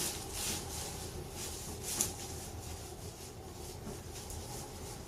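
Soft rustling and rubbing of hands and clothing as a patient is handled on a chiropractic table, with one sharp click about two seconds in.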